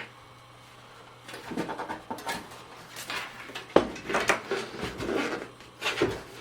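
Thin aluminium PC case side panel rattling, scraping and knocking as it is tugged at, with a sharp knock a little before halfway; the panel is tight and will not come off.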